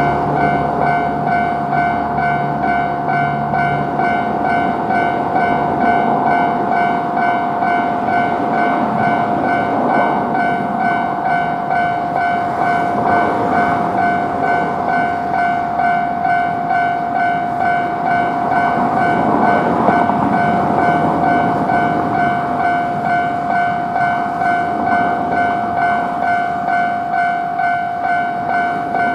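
Japanese railroad crossing alarm ringing a steady, evenly repeating "kan-kan" tone, with the rumble of a train passing over the crossing.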